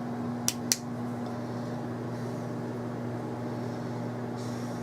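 Steady low electrical hum of a running appliance, with two quick clicks about half a second in.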